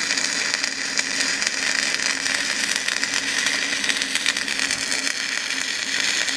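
Stick (SMAW) arc welding with a 6013 electrode on an inverter machine: the arc gives a steady crackling hiss as the rod burns down in a downhill groove weld, with a faint low hum under it.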